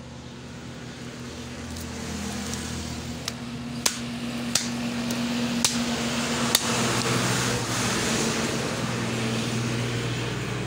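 Heavy cleaver chopping through fish on a wooden log block: five sharp chops stand out between about three and seven seconds in. Under them runs a steady mechanical hum.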